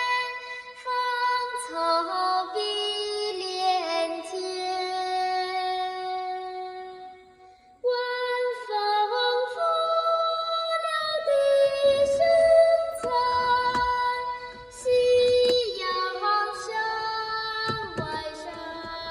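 Music: a slow melody of held notes that steps from pitch to pitch. It breaks off briefly about eight seconds in, then resumes with a fuller sound and some added percussive strokes.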